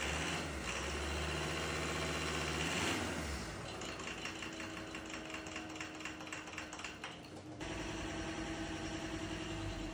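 Ford Ranger 3.2 five-cylinder diesel idling with a rapid, regular ticking clatter; the engine is misfiring, which the mechanic puts down to one injector not working. About three-quarters of the way through, the sound changes abruptly to a steadier idle with a held hum.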